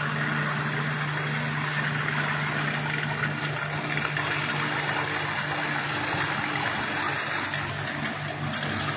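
Sinker EDM machine cutting with a copper electrode under a jet of flushing dielectric fluid: a steady low hum with a continuous dense hiss and crackle of the sparking and spraying fluid.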